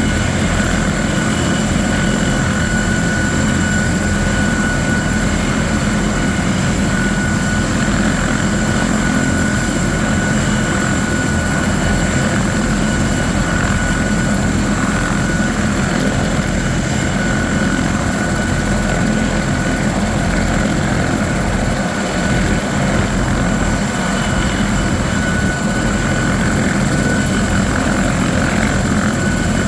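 Bell 412EP twin-turbine helicopter running steadily, its rotor noise joined by a high, steady turbine whine.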